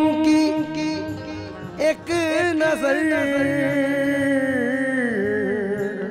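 Male qawwali singing of a naat, with long drawn-out, wavering notes over instrumental accompaniment. There are two long phrases with a short break about two seconds in, and the second phrase sinks in pitch near the end.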